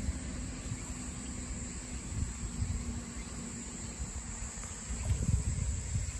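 Insects calling in a steady high drone, over a low, gusting rumble of wind on the microphone.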